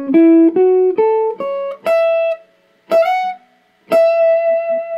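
A PRS electric guitar playing a melodic single-note line built from chord tones and the major pentatonic: about six picked notes in quick succession, then after a short pause a note slid up into, and after another pause a final note that rings on.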